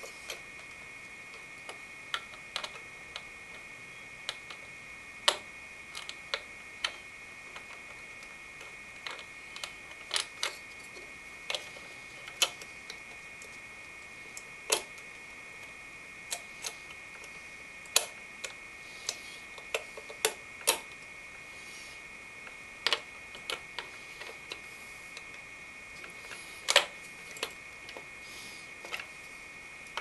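Long metal screwdriver clicking and tapping against the metal fins of a Noctua NH-L12 low-profile CPU cooler and its spring-loaded mounting screw while it is fished into place to catch the screw. The clicks come irregularly, a few every couple of seconds, over a faint steady high whine.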